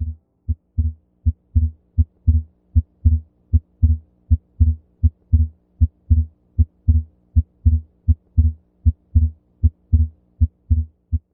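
Recorded heart sounds from auscultation: a steady run of lub-dub beats, about 80 a minute, in which the second heart sound is split. The split stays fixed and does not change with breathing, a pathological splitting of the second heart sound.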